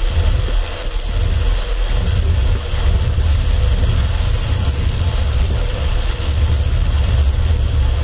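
Wind buffeting the microphone as a steady low rumble with a high hiss, and a faint steady hum under it.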